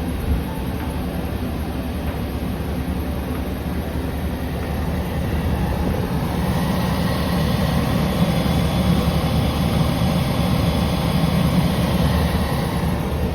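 Suzuki Every (DA17) van running, a steady mechanical noise that grows louder and hissier about six seconds in.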